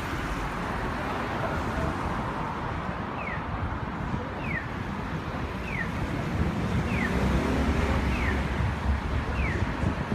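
City street traffic noise, a steady rumble and hiss with the low rumble growing stronger after about six seconds. Over it, a short falling chirp repeats about once a second from about three seconds in.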